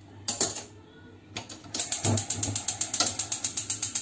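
Gas hob burner's spark igniter clicking: a few single clicks, then a rapid even run of about nine clicks a second for the last two seconds, stopping as the burner lights.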